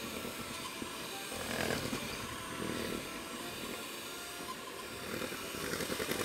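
Electric hand mixer running, its beaters whisking powdered sugar, egg white and lemon juice into sugar icing, with a steady motor hum that swells a little about one and a half seconds in and again near the end.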